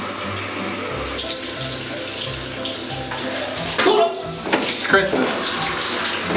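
Shower running, water spraying steadily.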